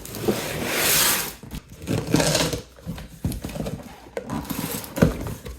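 Kitchen knife cutting through a cardboard box and its packing tape, in a few long strokes with sharp knocks between.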